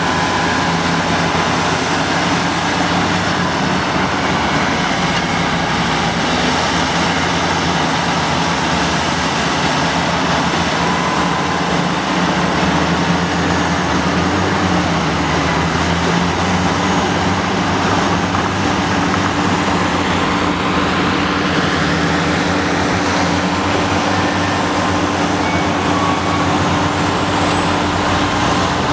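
Diesel engines of twin-engine CAT 657 scrapers working under load, a loud, steady heavy drone.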